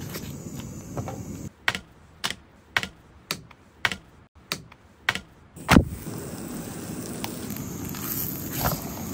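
Food being prepared with utensils and dishes: a quick run of about nine sharp clicks and taps, roughly two a second, the last one the loudest. After it a steady low background noise comes back with a few faint taps.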